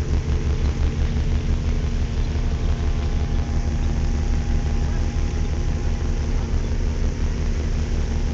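Purse seine fishing boat's engine running steadily, a deep, even drone with a few steady tones over it.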